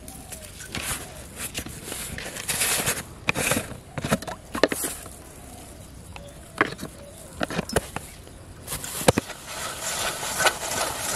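Close handling sounds of bait being made in a steel bowl: scattered knocks and clicks from the plastic jar and bowl, then rice being squished and stirred by hand against the steel near the end.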